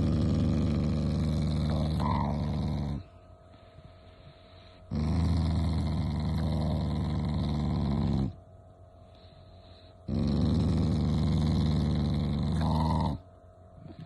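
A dog growling: three long, low growls of about three seconds each, with short pauses between them.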